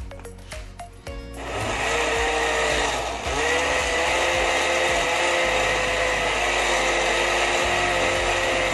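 Countertop blender starting up about a second and a half in and running steadily, puréeing boiled squash with moringa leaves, with a steady motor whine over the noise of the blades; it dips briefly about three seconds in, then carries on.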